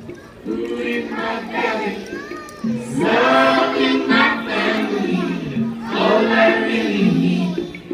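A choir of young kindergarten children singing a song together, in phrases with short breaks between them.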